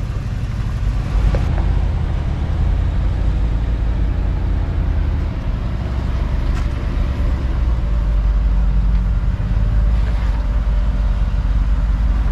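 Jeep Wrangler Rubicon engine running at low revs as it crawls slowly up a rock slab: a steady deep rumble.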